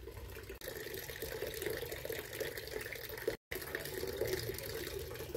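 Steady running or splashing water noise, cutting out completely for a moment about three and a half seconds in.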